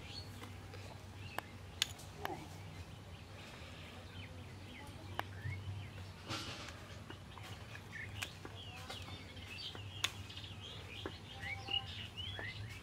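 Small birds chirping in short quick calls, more of them in the second half, over a faint steady hum, with a few sharp clicks.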